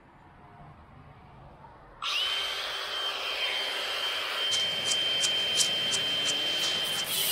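Milwaukee Fuel cordless angle grinder fitted with a cutoff wheel, switched on about two seconds in: it spins up with a rising whine that settles into a steady high whine as it runs, with a few sharp ticks near the end.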